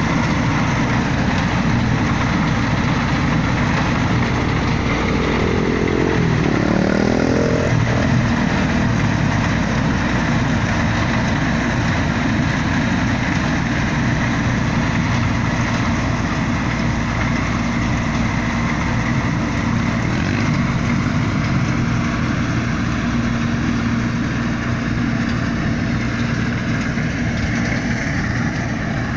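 Vehicle engine running steadily while driving slowly over rough field ground, with a short wavering rise and fall in pitch about six to seven seconds in.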